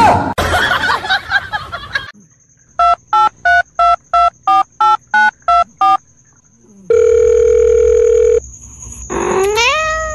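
About two seconds of noise, then a run of about ten telephone keypad beeps at roughly three a second, followed by a steady dial-tone-like tone for about a second and a half. Near the end comes a short rising cat meow.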